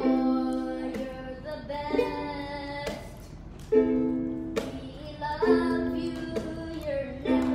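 A young boy singing while strumming a ukulele: held sung notes over a strum roughly once a second.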